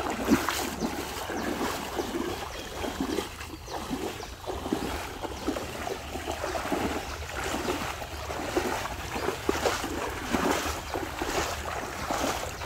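Two people wading fast through thigh-deep water, their legs churning and splashing with each stride.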